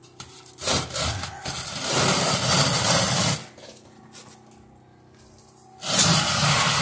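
A steel catch barrel full of hot charcoal being pulled out from under the kiln, scraping across a concrete floor in three pulls of about a second each.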